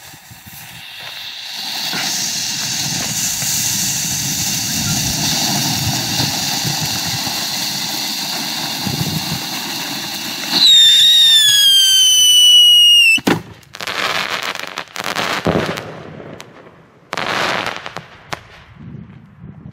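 A three-stage firework, the Silbercracker-Rot. First a red flare hisses steadily for about ten seconds. Then a loud whistle sounds for about two and a half seconds, sliding slightly down in pitch, and cuts off in a sharp bang. Bursts of silver crackling follow.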